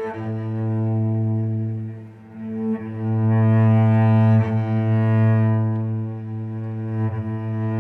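Cello bowed in long strokes on one sustained low note, with a full, buzzing ring of overtones. The bow changes direction about three times, with a brief drop in loudness a little after two seconds.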